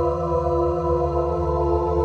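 Ambient synthesizer music: a sustained pad chord held steadily over a low drone, with no new notes or attacks.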